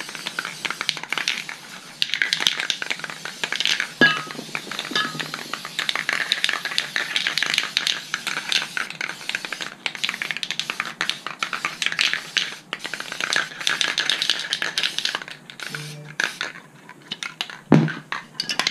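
Aerosol spray paint cans hissing in repeated short bursts as camouflage is sprayed onto an airsoft rifle, with a single knock near the end.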